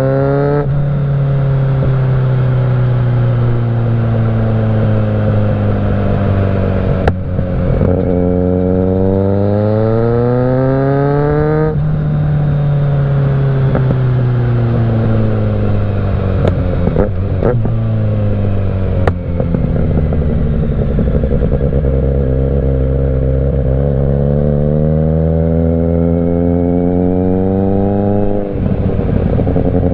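Kawasaki Z900's inline-four through a Mivv GP Pro exhaust with the dB killer removed, riding: the engine pulls up in one long climb, then falls away on deceleration with a few sharp exhaust pops, and climbs again with a brief dip near the end.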